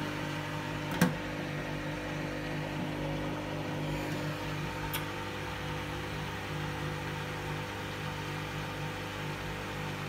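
Hoover front-loading washing machine turning its drum at low speed with a steady motor hum, trying to balance an unbalanced load for the final spin without getting up to spin speed. A single sharp knock about a second in.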